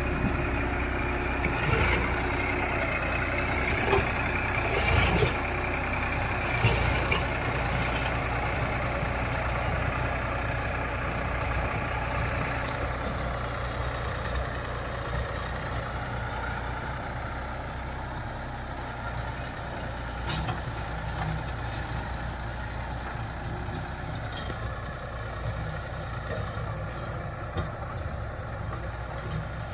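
Massey Ferguson 241 diesel tractor engine running steadily while working a loader-backhoe attachment, with several sharp knocks in the first seven seconds. The sound eases a little after about thirteen seconds.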